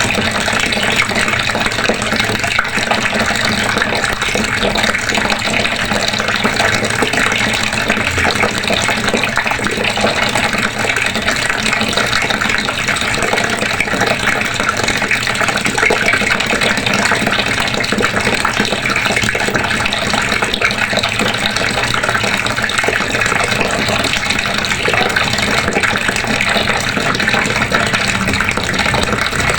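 Water running steadily from a faucet, a continuous rushing splash with no change in flow.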